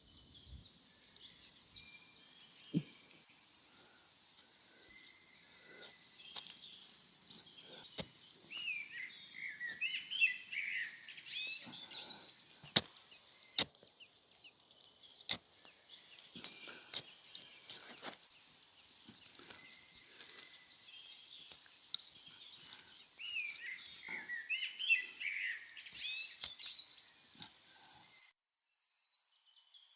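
Outdoor ambience with small birds chirping in two spells, about ten and about twenty-four seconds in, with scattered faint clicks and taps between.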